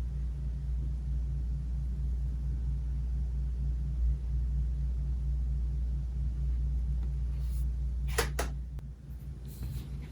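A steady low mechanical hum that stops about nine seconds in, just after two sharp clicks; a few faint taps follow.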